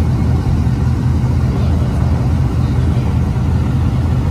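Pickup truck engine idling with a steady low rumble.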